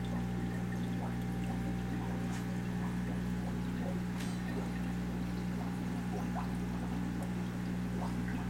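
Aquarium filter and pump running: a steady low electrical hum with water trickling and pouring into the tank. There is one brief click about four seconds in.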